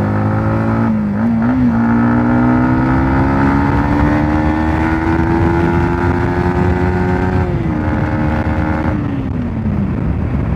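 Yamaha MT-15's single-cylinder engine accelerating hard in third gear, its pitch climbing steadily, then dropping with an upshift into fourth about seven and a half seconds in. Near the end the pitch falls away as the throttle closes. Wind rushes over the microphone at riding speed throughout.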